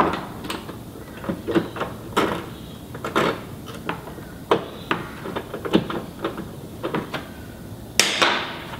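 Irregular clicks and knocks as a Land Rover Discovery 2's plastic factory sill is worked loose from its clips with a hand tool, with a louder clatter about eight seconds in.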